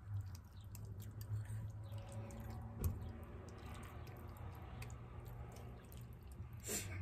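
A person eating pasta: chewing, with a fork scraping and clicking against the bowl in small scattered taps. There is a sharper knock about three seconds in.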